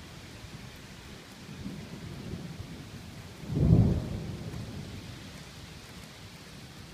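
Steady rain hiss with thunder rumbling: a low rumble swells about two seconds in, then a loud peal of thunder breaks about halfway through and rumbles away over the next second or so.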